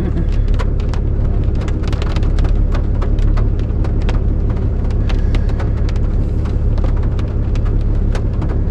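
Rain striking a vehicle in many irregular sharp ticks, over a steady low engine rumble.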